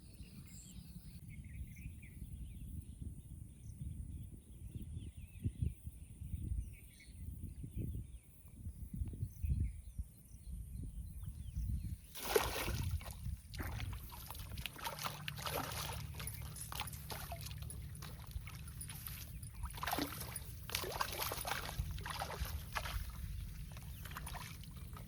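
Canal water splashing and sloshing irregularly, starting about halfway through, over a low steady rumble.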